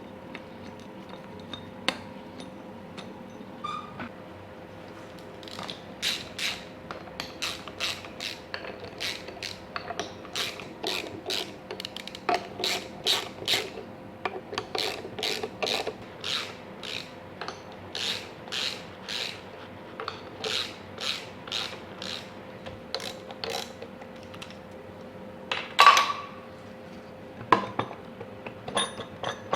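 Ratchet wrench being worked back and forth in a long run of quick strokes, about two clicks a second, undoing bolts on a Ducati 916 engine during strip-down. A single louder metal clank near the end.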